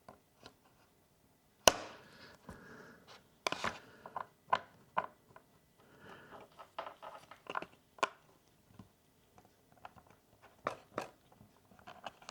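Thin pry tools clicking and scraping at the edge of an iPad mini 4 as its glued screen is worked loose from the body: scattered sharp clicks, the loudest about two seconds in, with short scraping stretches between.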